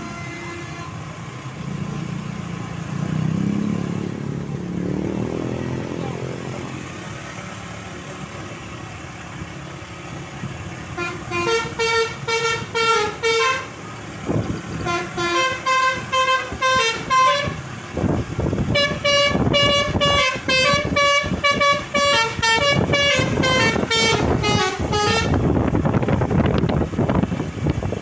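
A bus's 'basuri' telolet musical air horn playing a tune in short stepped notes, starting about a third of the way in and stopping shortly before the end. Loud vehicle engine noise runs underneath through the second half.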